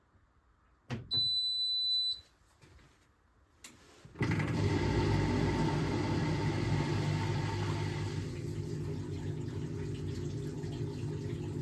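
Hotpoint Experience WMEF641 washing machine: a click and a single high electronic beep lasting about a second as the programme is stopped, another click, then about four seconds in its drain pump starts and runs steadily, humming as it pumps out the water.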